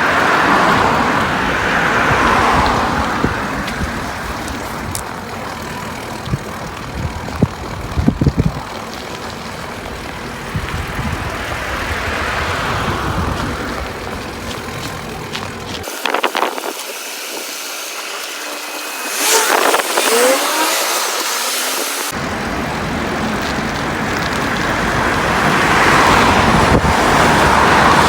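Road traffic: cars passing now and then, each rising and fading, over a steady low rumble of wind on the microphone. For a few seconds past the middle the rumble drops away and a few short clicks and squeaks are heard.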